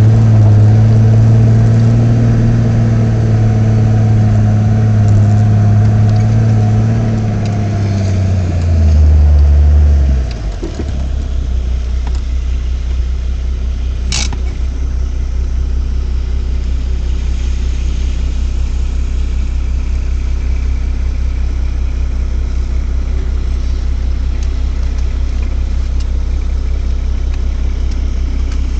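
Nissan Patrol GR Y60's diesel engine heard from inside the cabin, running steadily under load at first, then dropping in pitch about ten seconds in and settling into a steady idle as the truck stands still. A single short sharp click about fourteen seconds in.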